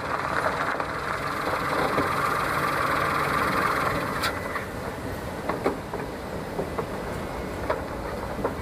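A Citroën saloon car pulling in and coming to a stop, its engine and tyre noise strongest for about the first four seconds. Then lower running noise with a few short clicks and knocks as the car's doors are opened.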